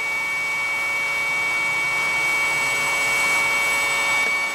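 Small CMG three-phase electric motor on a Powtran variable frequency drive, running slowly as the speed is turned down from about 7 Hz toward 5 Hz, near the drive's low-speed limit. It gives a steady whine made of several steady high tones.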